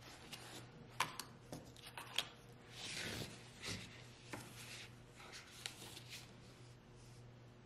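Hardcover book being handled: paper pages turning and rustling, with a few sharp taps as the book and its cover are moved, the loudest about one and two seconds in.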